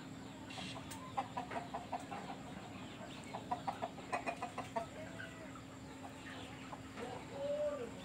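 Chickens clucking: two runs of quick clucks a couple of seconds apart, then a short drawn-out call near the end, over a steady low hum.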